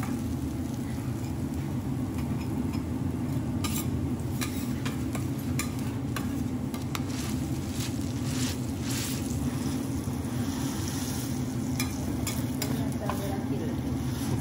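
Oil sizzling steadily on a flat-top teppanyaki griddle as minced fat and garlic fry in it, with metal spatulas scraping and clicking on the steel plate now and then.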